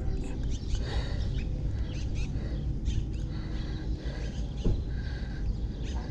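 Small birds chirping in short, scattered calls over a steady, uneven low rumble of wind on the microphone.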